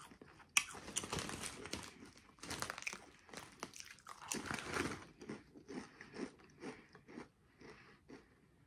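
Doritos tortilla chips being bitten and crunched close to the microphone: a sharp bite about half a second in, then bursts of crunching that thin out to quieter chewing in the second half.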